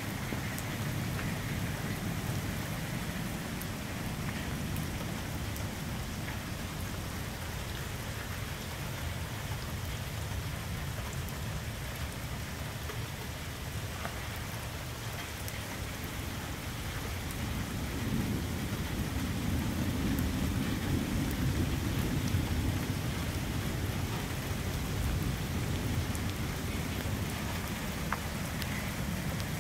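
Steady rain falling on a garden, with scattered small ticks of drops, and a low rumble that swells for a few seconds about two-thirds of the way through.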